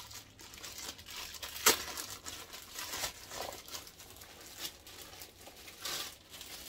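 Thin plastic bag crinkling and rustling in irregular crackles as a pair of shoes is worked out of it, with one sharp, louder crackle nearly two seconds in.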